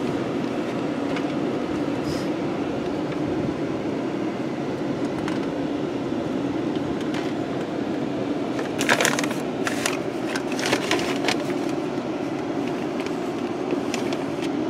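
Steady hum inside the cabin of a stopped car, from its running engine and ventilation. About nine to eleven seconds in comes a cluster of sharp clicks and crackles.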